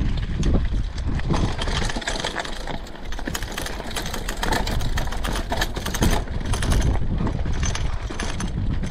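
Mountain bike riding over a rough woodland trail: tyres on dirt and rocks, with the bike rattling and knocking over the bumps and a low wind rumble on the microphone.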